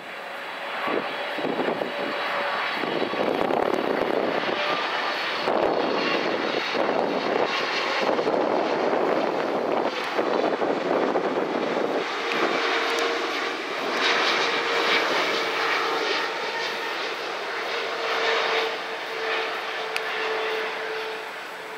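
Jet engines of a Boeing 777-300ER on final approach, its twin GE90 turbofans at low thrust: a steady rushing jet noise that swells over the first few seconds as the airliner comes overhead, with a steady droning tone joining about halfway through.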